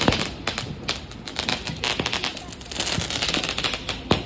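Fireworks going off: a string of sharp cracks and bangs over a hissing crackle. The loudest bangs come right at the start and again just before the end.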